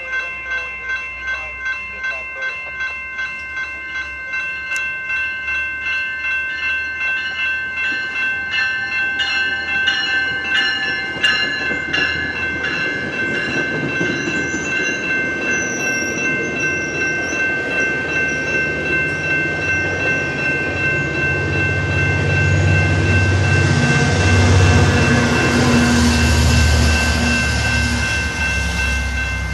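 Level-crossing warning bells ringing in a steady, pulsing rhythm as a GO Transit commuter train passes. The train's low rumble and wheel noise build from about two-thirds of the way in and are loudest near the end.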